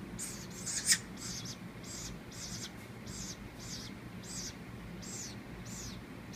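Baby woodpecker's begging calls during feeding: a steady run of short, high-pitched chirps, about two or three a second. One sharp click about a second in is the loudest sound.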